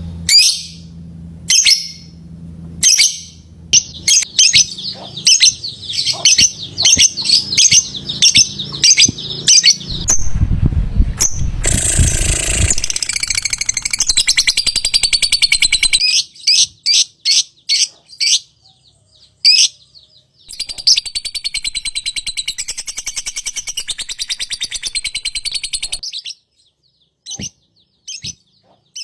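Lovebird calling in sharp, high-pitched chirps and long rapid chattering trills, the drawn-out 'ngekek' song. A loud rushing noise cuts in for a few seconds about ten seconds in, and the calls thin out to a few chirps near the end.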